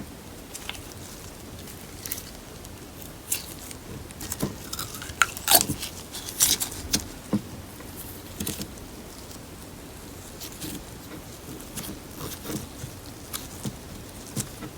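Slime being mixed and squished with paper clay by hand, giving irregular soft crackles and pops, busiest in the middle stretch.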